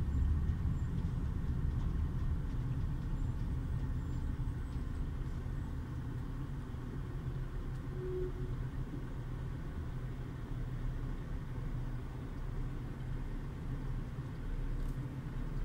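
Low rumble of a car's engine and road noise heard from inside the cabin as the car slows and comes to a stop in traffic, easing a little over the first few seconds.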